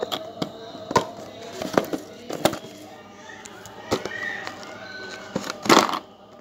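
Handling noise from a lavalier microphone kit: irregular sharp clicks and knocks as its cables, plastic control box and metal plugs are picked up, shifted and set down on a tabletop, the loudest clatter near the end.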